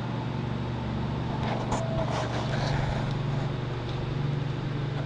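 Steady low droning hum of the shop's background machinery, with faint rustles and light taps of a vinyl decal and its backing paper being smoothed onto a pickup's bed side about one and a half to two and a half seconds in.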